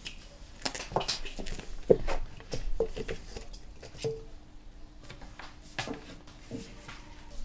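Risen yeast dough handled in a stainless steel bowl and tipped out onto a wooden table. The bowl knocks and rings briefly several times, the loudest knock about two seconds in, with soft squishing and slaps of the dough.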